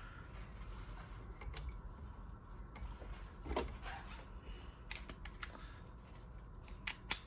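Scattered light clicks and knocks, a few in quick clusters, as car parts are handled, over a faint low rumble.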